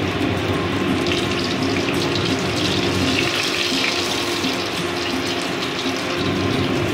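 Hot oil sizzling in a kadai as fried rohu fish pieces are turned and lifted out with a steel spatula. The sizzle swells about three seconds in.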